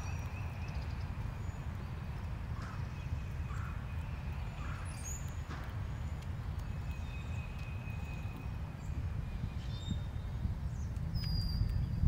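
Steady wind rumble on the microphone, with faint high whistles and chirps from distant birds. A few soft taps come in the first half, from the cowbird pecking seed on the feeder tray.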